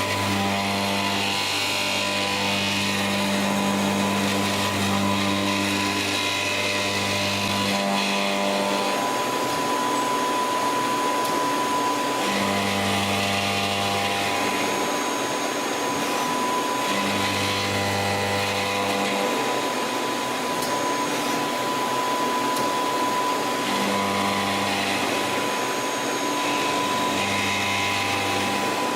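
CNC lathe running: a steady machine noise with a constant high tone, and a deep hum that switches on and off every few seconds as the machine works through its cycle.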